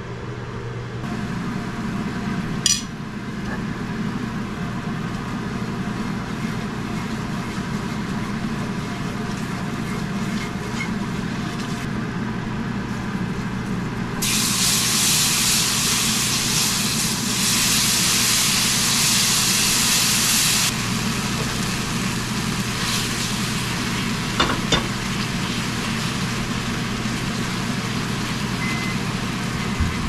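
Pan gravy of flour and meat drippings sizzling in a hot cast-iron skillet as it is whisked, over a steady low hum. The sizzle turns much louder and brighter for about six seconds midway, and there is a single clink a few seconds in.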